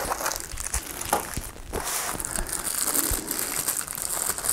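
Plastic packing wrap crinkling and rustling as hands unwrap a small part from its foam packaging, with many small crackles.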